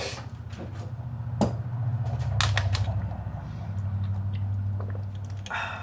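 Small motor of a homemade wire-twisting rig running with a steady low hum that swells and eases, with sharp rattling clicks over it; the rattle comes from the motor having no tension on it.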